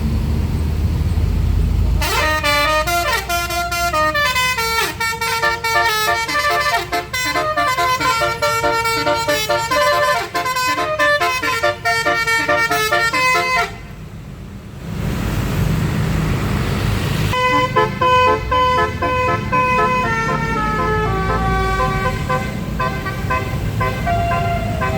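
Basuri telolet multi-note air horn on a tour bus playing a fast tune of stepping notes, starting about two seconds in. It stops near the middle, leaving only low bus engine rumble for a few seconds, then another tune starts and runs on.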